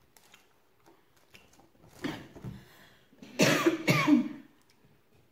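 A woman coughing: a lighter cough about two seconds in, then two strong coughs about half a second apart.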